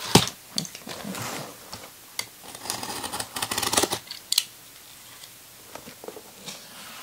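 Cardboard shipping box being cut open with a small handheld cutting tool: sharp clicks, then scratchy slicing through packing tape and cardboard for about four seconds, and a light click near the end as the tool is set down on the wooden floor.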